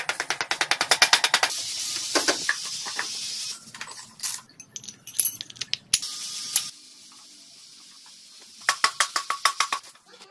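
Rapid runs of sharp metallic clicking from hand work on motorcycle parts, at the start and again near the end, with a few separate knocks and clatters in between.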